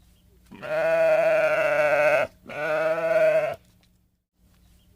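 Sheep bleating twice: a long wavering baa, then a shorter one right after.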